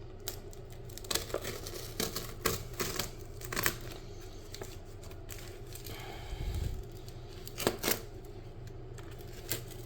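A heavily taped mailing package being cut and torn open: irregular short ripping and scraping strokes of packing tape and paper, with one longer pull lasting about a second.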